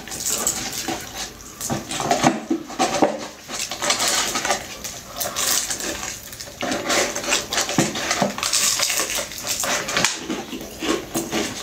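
A cardboard bucket of fried chicken being handled and rustled, with crunchy biting and chewing of the chicken: a dense run of irregular crackles and clicks.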